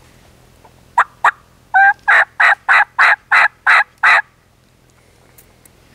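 Three-reed diaphragm turkey mouth call blown as a yelp: two short soft pops, then a run of about eight yelps at roughly three a second, each note blending a high front end with a lower note.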